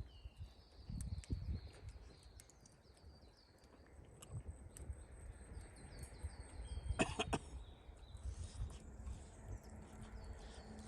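A small bird calling a quick run of short chirps over and over for the first six seconds, with low knocks and rustling. About seven seconds in comes a short, loud, harsh sound like a cough.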